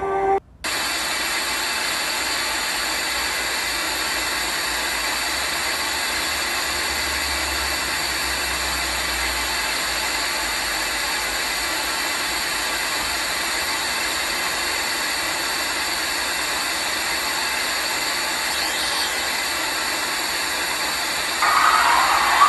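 Music cuts off, and after a moment's gap a steady, even static hiss of white noise comes in and holds unchanged. Near the end a louder, rougher band of noise in the middle pitches joins it.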